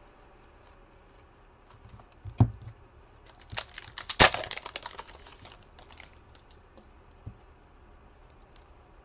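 A trading-card pack wrapper torn open and crinkled, a burst of sharp crackling about four seconds in. A single thump comes a little over a second before it.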